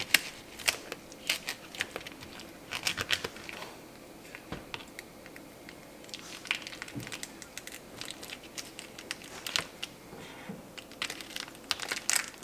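Handling noises: irregular light clicks and taps mixed with short bursts of crinkling, like packaging being rustled and items being handled.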